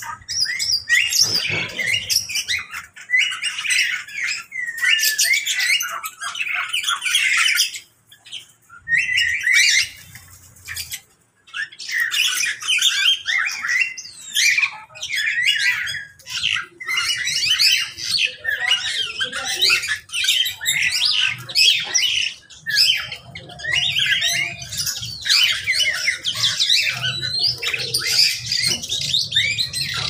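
Many aviary birds, mynas and small parrots, calling at once: a dense, shrill chatter of squawks and chirps, with brief lulls about eight and eleven seconds in.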